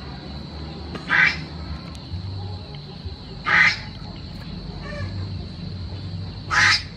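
Duck quacking: three loud single quacks two to three seconds apart, with a fainter one between the last two.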